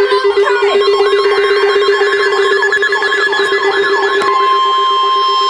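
Several electronic alarm tones layered at once: a fast-pulsing low buzz, repeated sweeping siren-like whoops, a high warble and a steady high tone. A second steady tone joins about four seconds in.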